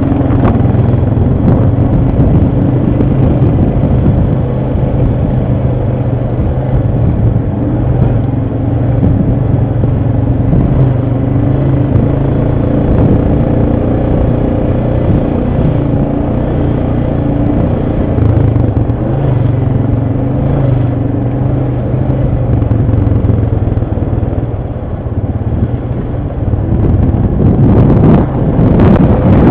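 ATV engine running steadily under way, a low, even engine note with trail clatter, getting louder and rougher near the end.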